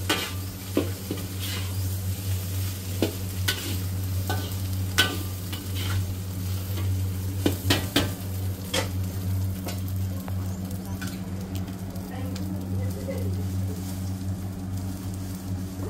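Fried rice being stir-fried in a wok: sizzling, with sharp clanks of a metal spatula against the pan, most of them in the first half, over a steady low hum.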